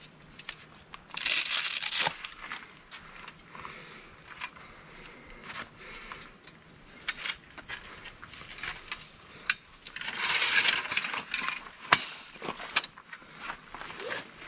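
Folding camp cot being unfolded and set up on gravel: rustling fabric and clicking, rattling frame pieces, with footsteps crunching on gravel. Louder bursts of scraping and rustling come about a second in and again around ten seconds in, and a sharp snap follows shortly after.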